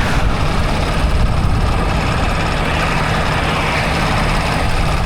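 Semi truck's diesel engine idling steadily, run after a coolant loss so the cooling system can be checked for leaks.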